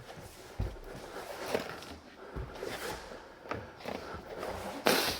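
Handling noises of EPDM rubber membrane being pressed and rolled by hand over the top edge of a wall: faint rubbing with a couple of soft thumps, and one brief louder rub near the end.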